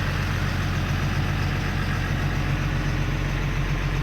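Diesel engine of a MAN 6x4 concrete mixer truck idling steadily.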